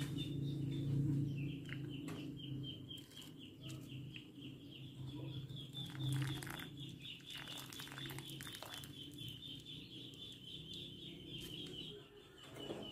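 A small bird chirping in a rapid, steady series of high notes, over a low hum that fades out about two-thirds of the way through. A few light clinks of a ladle in the pot of boiling macaroni come through in the middle.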